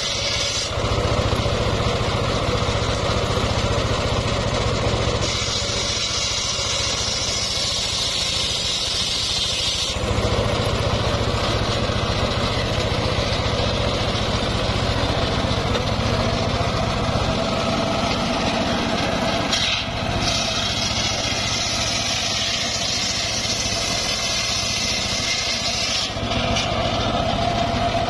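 Homemade table circular saw driven by an engine, running steadily throughout. The spinning blade rips lengthwise through planks in two spells, a rushing hiss over the engine about five seconds in and again from about twenty seconds in.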